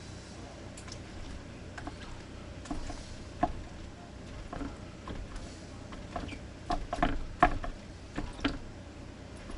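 Irregular light clicks and knocks of small objects being handled, thickest and loudest in the second half.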